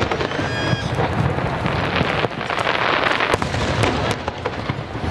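Aerial fireworks shells bursting, with sharp bangs over a dense crackling from the glittering stars, thickest about three seconds in. A short high tone sounds about half a second in.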